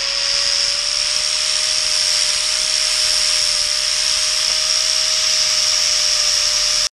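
Angle grinder with a blue abrasive disc running steadily at speed, grinding the cut edge of a short section of steel pipe, with a steady whine.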